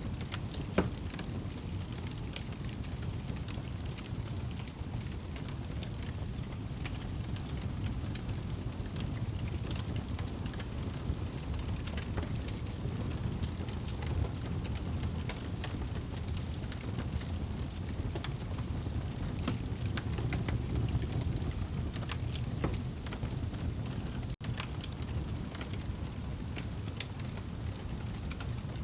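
Wood fire burning in a fireplace: a steady low rumble of flames with scattered crackles and pops, one sharp pop about a second in.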